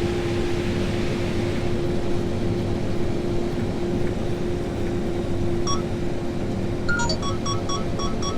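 Case IH AF9 combine running steadily, heard inside the cab as a constant hum with a steady droning tone. From about six seconds in, a rapid run of short electronic beeps starts up, roughly three a second.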